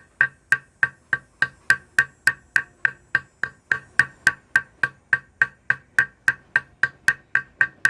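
Small hammer tapping the cut end of a metal rivet against an anvil, peening it over a washer into a little dome. Even, quick taps, about three a second, each ringing briefly.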